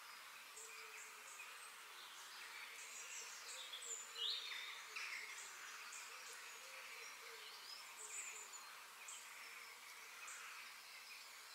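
Faint nature ambience: scattered high chirps and a few quick falling whistles over a steady high hiss, the liveliest calls about four seconds in.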